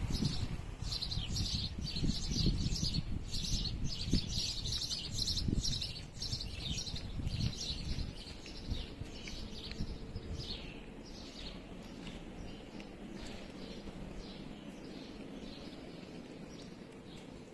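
Small birds chirping: many quick, high, falling calls several times a second, busiest in the first half and thinning out toward the end. A low rumble sits under the first six seconds or so.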